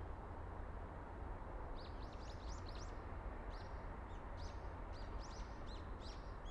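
Small birds chirping: a rapid series of short, high chirps starting about two seconds in, over a steady low background rumble.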